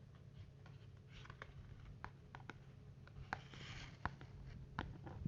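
Light clicks and taps of small items being handled, with a short rustle about three and a half seconds in: rummaging through a first aid kit. A faint low hum runs underneath.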